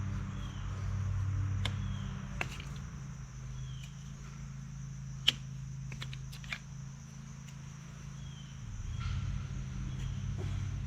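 Fence insulators being snapped and pried off wooden posts: a handful of sharp clicks at irregular moments over a steady low engine hum.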